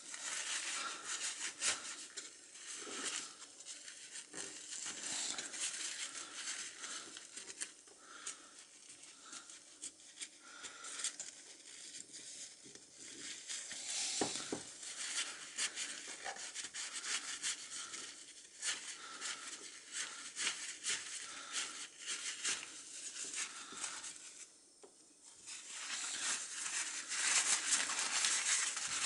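Paper towel crinkling and rubbing as a small lighter part is wiped clean by hand, with many short ticks and scrapes. There is a brief pause near the end.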